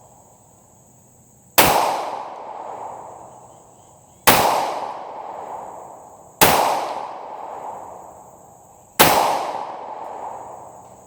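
Four pistol shots fired a couple of seconds apart, each a sharp crack followed by a long echo that rolls away.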